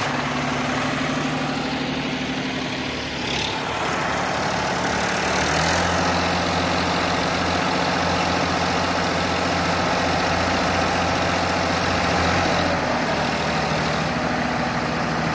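Diesel engines of two Sonalika tractors running, one tractor straining on a tow rope to pull the other, stuck, tractor free. About five seconds in the engine note deepens and grows louder under the pull, holds steady, and eases back near the end.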